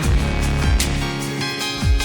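Background music: an electronic track with a bright melody over deep bass notes that slide down in pitch.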